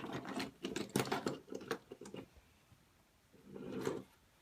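A battery-powered toy train running along its track: a small motor whirring with rapid clicking, which stops about two seconds in and briefly starts again near the end.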